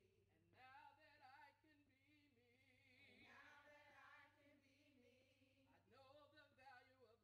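Faint group of women's voices singing a chant together in unison, a cappella, in phrases with short breaks between them.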